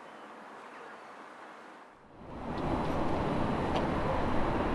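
Outdoor town ambience, with steady traffic and wind noise. It is faint at first and grows much louder and fuller in the low end about two seconds in.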